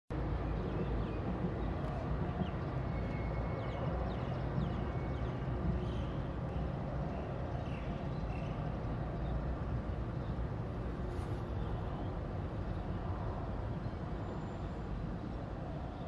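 Steady low rumble of distant city traffic, with a few faint, short, high chirps in the first half.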